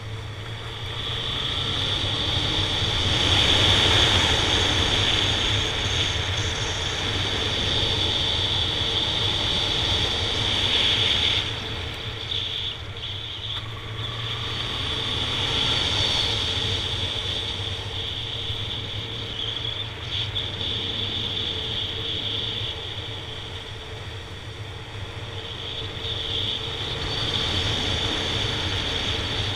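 Honda Nighthawk 750 motorcycle's inline-four engine running under way. The level swells over the first few seconds, dips for a couple of seconds near the middle and rises again.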